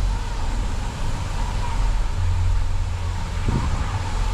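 Steady low rumble under an even hiss, heard while riding a chairlift, with one brief low knock about three and a half seconds in.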